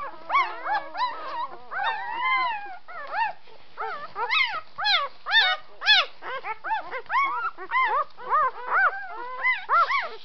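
Three-day-old puppies squealing and whining as they jostle for a teat while nursing: a dense string of short, high calls that rise and fall, overlapping one another, loudest about four to six seconds in.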